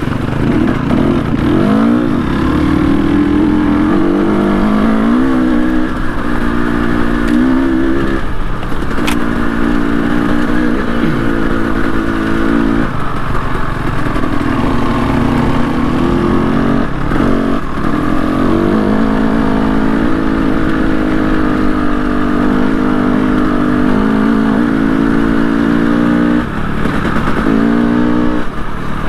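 Trail motorcycle's engine pulling under load as it is ridden along a track, its pitch climbing and falling again and again, with brief dips where the throttle is closed or a gear is changed.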